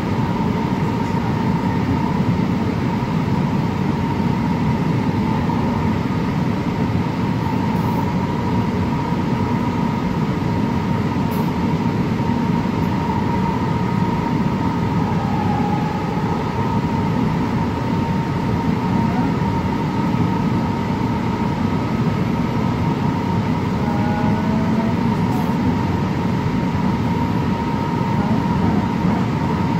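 Onboard ride noise of a 2006 AnsaldoBreda P2550 light rail car running at steady speed: a constant rumble of wheels on rail, with a steady high whine on top.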